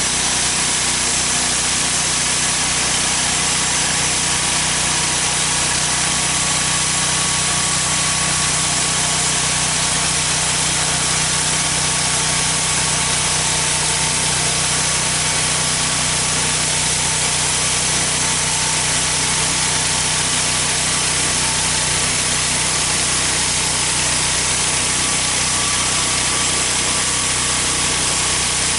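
Homemade band sawmill sawing through a poplar log: the band blade and its drive running steadily, an even hiss of cutting with a few steady hums.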